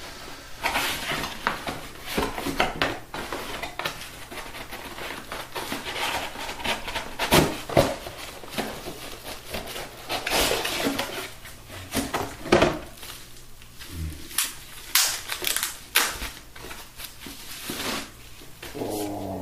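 Cardboard packaging being handled: a small box opened and its insert pulled out, with irregular rustling, scraping and sharp clicks, a few louder than the rest.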